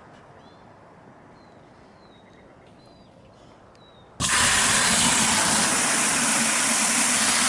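Faint bird chirps, then about four seconds in a loud, steady hiss of spraying water starts suddenly, as from a hose.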